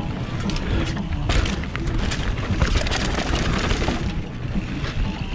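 Mountain bike ridden down a dirt trail, heard from a bike-mounted camera: a steady low rumble of wind buffeting the microphone, with tyre noise on the dirt and frequent rattles and knocks from the bike over bumps.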